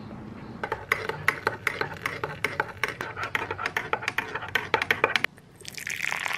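Metal teaspoon stirring coffee in a ceramic mug, clinking against the sides in quick taps, about five a second. Near the end the clinking stops and a steady hiss takes over.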